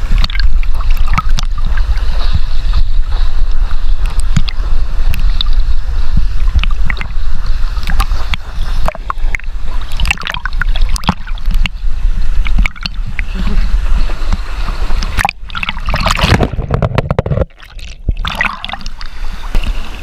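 Pond water sloshing and splashing against a camera held at the surface while a swimmer paddles on an inner tube, with a heavy low rumble and irregular splashes. The sound drops away sharply for a moment about three-quarters of the way through.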